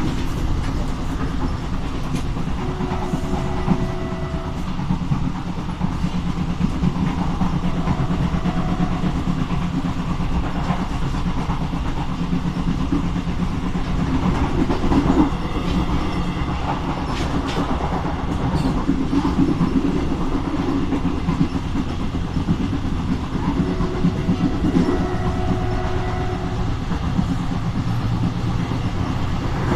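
Train running steadily along the line, hauled by SNCFT diesel locomotive 040-GT 566: a continuous rumble with wheels clacking over rail joints, and a few brief faint tones.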